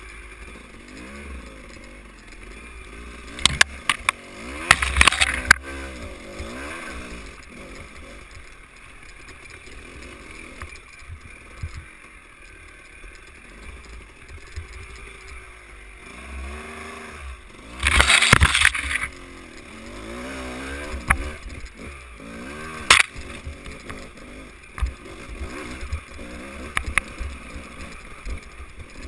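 Dirt bike engine running, its revs rising and falling constantly over rough rocky trail. Loud rough bursts of noise break in about four seconds in and again around eighteen seconds, with a sharp knock a few seconds later.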